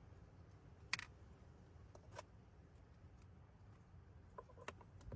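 Near silence with a few faint clicks and taps of objects being handled, the clearest about a second in.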